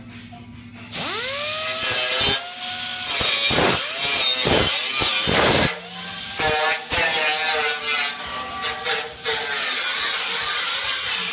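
A high-speed handheld power tool spinning up about a second in, then working in short passes, its pitch dropping each time it bites and rising again as it frees, with a harsh hissing noise throughout.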